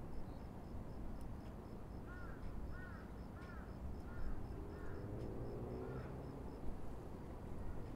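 Outdoor mountaintop ambience: a steady low hum of distant city and wind, with a bird calling about six times in quick succession from about two seconds in, over an insect ticking about four times a second.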